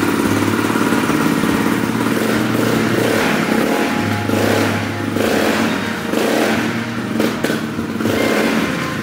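Honda CRF250 single-cylinder four-stroke engine running, with the throttle blipped again and again, so the revs rise and fall every second or so.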